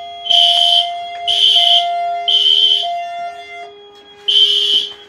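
Evacuation alarm signal from a Notifier VEC-25/50 voice evacuation panel, played through a ceiling speaker. A high tone sounds in half-second pulses about once a second, pauses for about a second and a half after the fourth pulse, then resumes, with fainter steady lower tones underneath.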